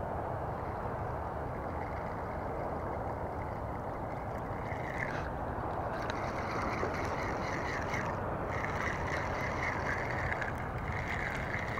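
Spinning reel cranked in spells during a lure retrieve, a higher whirring that starts about four seconds in and stops briefly twice, over a steady rushing background.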